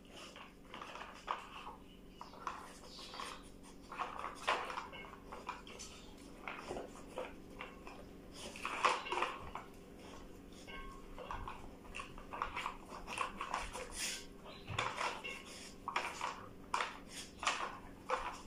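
Plastic Nina Ottosson puzzle feeder being worked by a dog's nose and paws: irregular clacks and rattles of the plastic pieces sliding and knocking as it hunts out the food, busier and louder from about four seconds in.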